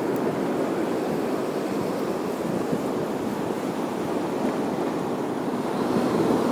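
Mediterranean sea surf washing against a rocky shore, a steady rushing noise, with wind buffeting the microphone.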